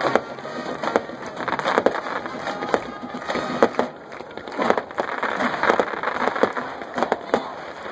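Fireworks going off in quick succession: irregular sharp bangs and pops over continuous crackling.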